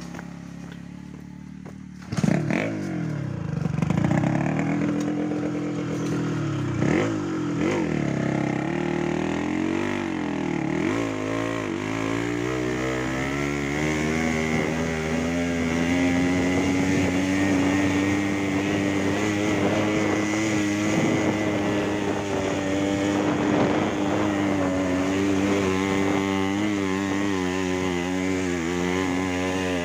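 Small motorcycle engine revving up and down several times, then running steadily under way with its pitch slowly rising.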